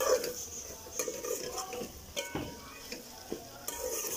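A long metal spoon stirring and scraping spiced minced beef around a metal pot in irregular strokes, with a faint steady sizzle of the meat frying in oil. This is the bhuna stage: keema roasting with its spices over a medium flame.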